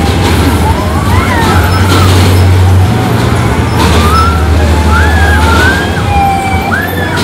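Loud music from a spinning carnival ride as it runs, with a heavy bass line that changes note twice and high wailing glides rising and falling above it.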